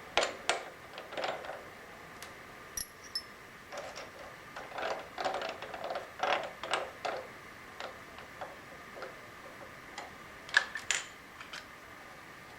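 Irregular light metallic clicks and knocks of tools and machine parts being handled, with a louder knock about ten and a half seconds in.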